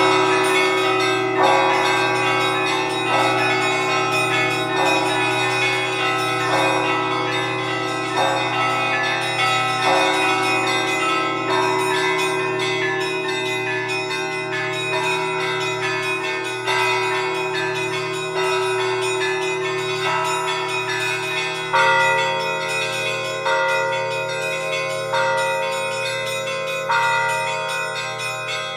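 Church bells ringing, struck one after another with a new strike about every one and a half to two seconds, each tone ringing on and overlapping the next.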